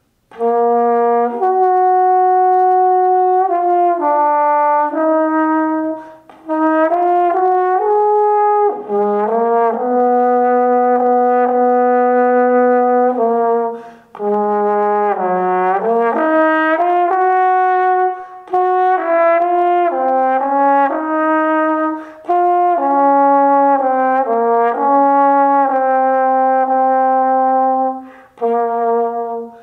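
Trombone played solo: a slow melody of held notes, with the pitch sliding between some of them, in several phrases separated by short breath pauses.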